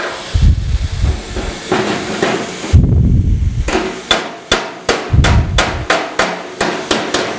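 Body hammer striking a thin-gauge sheet-steel patch panel against a dolly: sharp metallic taps, sparse at first and then a quick run of about three a second in the second half, with duller low thumps in between. The taps are hammer-and-dolly work knocking a high spot of the tacked-in patch down flush.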